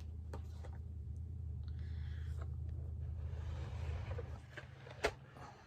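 A steady low hum from a running motor or appliance that stops about four and a half seconds in, under light handling rustle, with one sharp click near the end.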